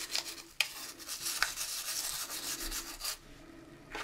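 Toothbrush bristles scrubbing a plastic model car part to loosen dried flood grime: a quick run of scratchy brushing strokes that stops about three seconds in.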